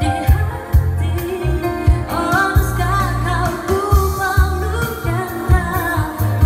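A woman sings a pop song live into a microphone over Yamaha keyboard accompaniment with a steady drum beat, amplified through a PA system.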